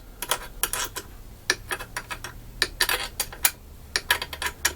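Small metal parts and hand tools clicking and clinking, irregular sharp taps, some in quick clusters.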